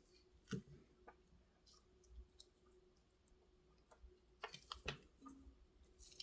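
Faint scattered clicks and taps from small tools and wire being handled during a battery-cable solder repair, with a short cluster of clicks near the end, over a faint steady hum.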